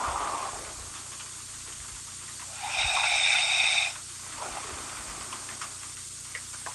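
A woman snoring in her sleep: one loud, rasping snore on the in-breath about three seconds in, lasting a little over a second, with a softer breath out near the start.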